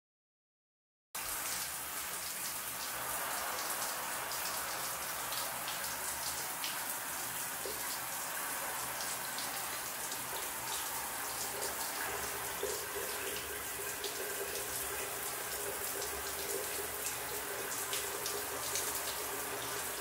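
Steady running water, like a shower spray, starting suddenly about a second in, with a few faint clicks over it.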